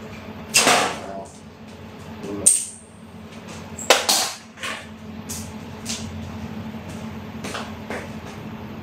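A string of sharp knocks, clatters and rustles from objects being handled, the loudest about half a second, two and a half and four seconds in, over a steady low room hum.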